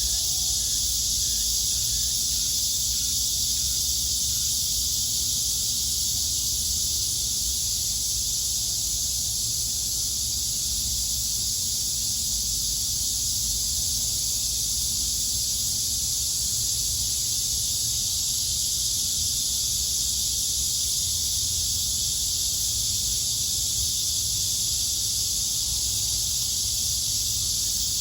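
Chorus of cicadas droning steadily, a dense high hiss-like buzz that never breaks, over a steady low rumble.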